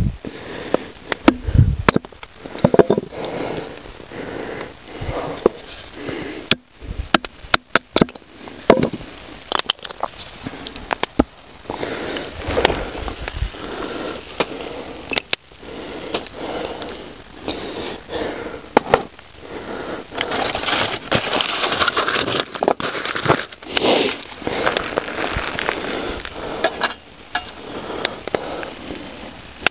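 Dry wood sticks being split and snapped by hand for a campfire: irregular sharp cracks, snaps and scrapes, several coming in quick clusters.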